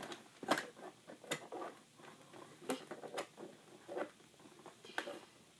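Scissors snipping at the packaging fastenings that hold a toy in its box, heard as a series of irregular sharp clicks, about six of them.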